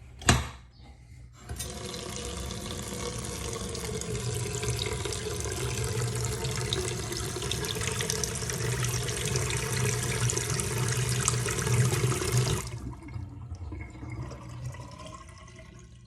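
A sharp click, then a bathroom faucet runs water into a vanity sink for about eleven seconds and is shut off. The water drains away quickly through the freshly unclogged drain.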